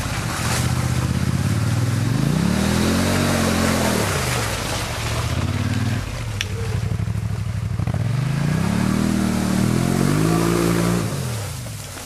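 Quad bike (ATV) engines revving through mud. The engine note climbs and falls back twice in long surges over a steady hiss.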